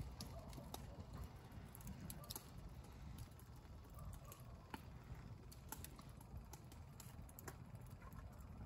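Faint, irregular small clicks and ticks, a few a second, over a low steady rumble.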